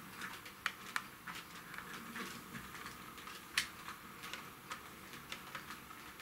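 Faint, irregular clicks and ticks on a model railway layout, about a dozen scattered through the stretch, the sharpest one a little past halfway, while the model electric locomotive stands still.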